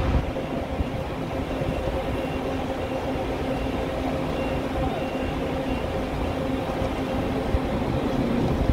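Diesel engine of a Marcopolo Paradiso G7 1800 DD double-decker coach on a Mercedes-Benz O-500RSD chassis, running steadily with a low rumble as the coach pulls slowly away.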